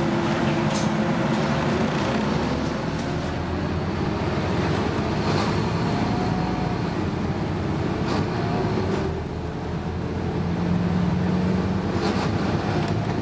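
Scania N230UD double-decker bus heard from inside its upper deck while driving: a steady engine and road rumble whose engine tone rises and falls, with a few short rattles from the bodywork.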